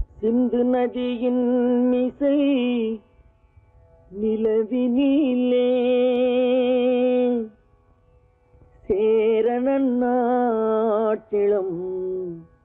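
Unaccompanied wordless male vocal from a Tamil film song: three long held notes with a wavering vibrato, separated by short silences.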